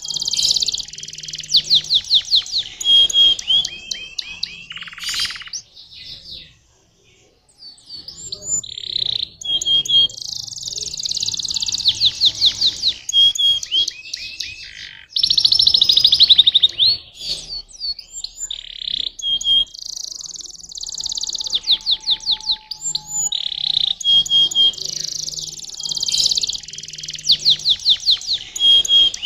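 Domestic canary singing: long high-pitched phrases of fast trills and rapid repeated notes, broken by short pauses, with one brief gap about seven seconds in.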